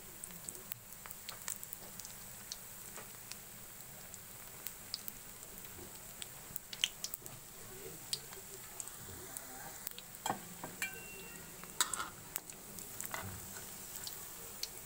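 Lumpia rolls deep-frying in oil in a wok over lowered heat: a steady sizzle scattered with crackles and pops, a few louder ones about 7, 10 and 12 seconds in.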